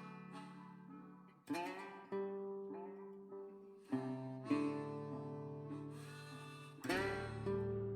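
Background music: acoustic guitar strumming a run of chords, each struck sharply and left to ring.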